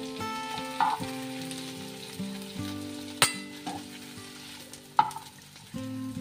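Metal spatula clinking three times against a steel plate and frying pan as fried potato, capsicum and onion pieces are scooped out, the middle clink the loudest, over light sizzling. Instrumental background music with held notes plays throughout.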